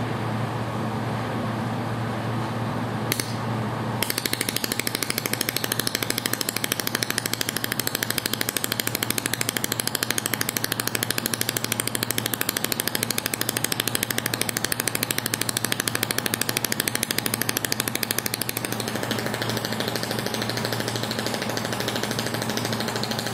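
400 W mold laser welding machine firing a rapid, even train of laser pulses, each a sharp tick. The ticking starts about four seconds in and stops a few seconds before the end, over the machine's steady hum.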